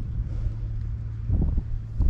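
Steady low machine hum with wind noise on the microphone. About a second and a half in, a short louder rumble of wind buffeting the microphone.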